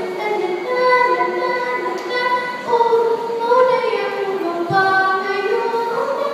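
A woman singing solo into a microphone, holding long notes that slide and step up and down in pitch.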